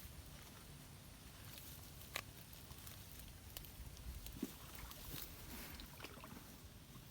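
Wind rumbling faintly on the microphone at the water's edge, with soft water lapping and a few small scattered clicks, two sharper ones about two and four and a half seconds in.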